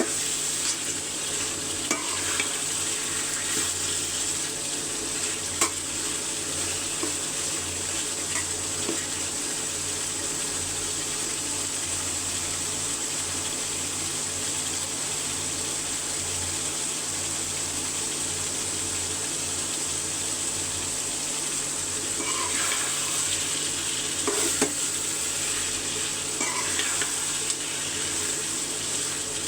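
Spiced chicken curry sizzling in oil in a cooking pot, with occasional clicks and scrapes of a spoon stirring against the pot.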